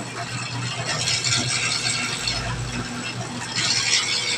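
Electric dough roller running: a steady motor hum under a clattering, ratchet-like gear noise, which gets louder about a second in and again near the end while dough is fed between the rollers.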